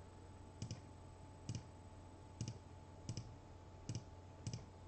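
Faint, light clicks, about six of them spaced a little under a second apart, over a low steady hum.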